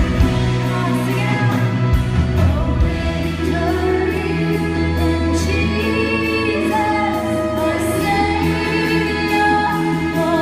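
Live worship band with lead and backing singers singing a slow, sustained worship chorus over held band chords and bass; the busier accompaniment of the first two seconds settles into long held chords.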